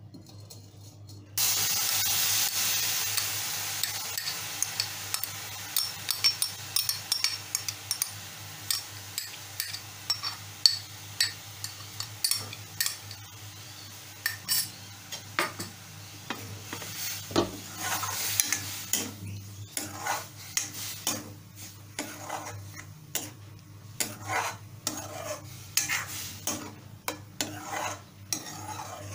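Onion-tomato puree hitting a hot, dry metal kadhai with no oil: a sudden loud sizzle about a second in that slowly dies down, with a spoon scraping and clinking against the pan as the puree is stirred, the clinks coming more sparsely near the end.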